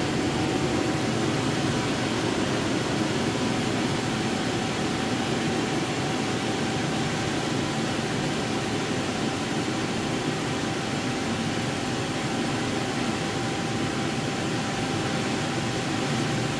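Inflatable paint booth's electric blower running steadily as it fills the booth with air: a constant rush of air with a faint steady whine.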